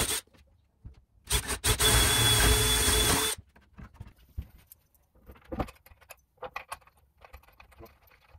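DeWalt cordless drill/driver motor running steadily for about two seconds, starting about a second in and cutting off sharply, as it drives a screw into a walnut wardrobe door panel. Faint knocks and rubs of hands on the wood follow.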